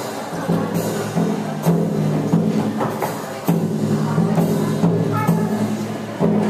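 Music with sustained low notes that change in steps, and sharp percussive hits at irregular intervals.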